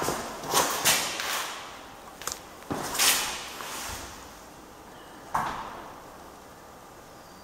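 Several short scuffs and knocks, the loudest about three seconds in, stopping after about five and a half seconds and leaving a low steady background.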